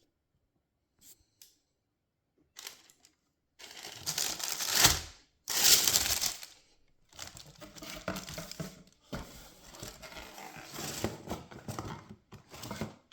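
Paper packing crinkling and rustling as a pair of sneakers is handled out of its box, in a series of bursts, the loudest about five and six seconds in, after a couple of faint clicks.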